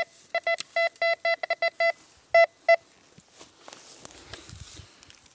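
Handheld metal detector beeping over a buried metal target: a quick run of about a dozen short, identical tones that stops about two and a half seconds in. Soft rustling follows.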